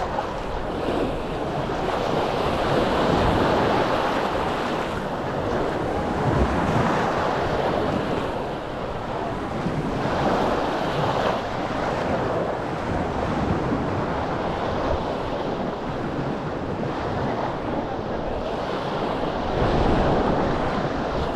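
Small sea waves washing onto a sandy beach, the surf swelling and easing every few seconds, with wind buffeting the microphone.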